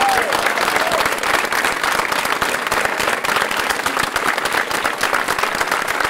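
Crowd applauding, many hands clapping together at an even level throughout, with a last cheer fading in the first second.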